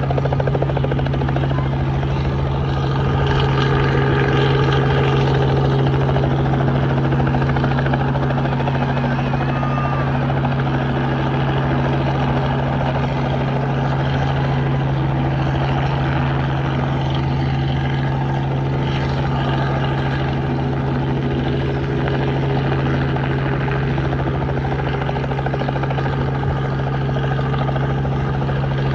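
Helicopter running steadily, a constant low drone with overtones that holds one pitch throughout.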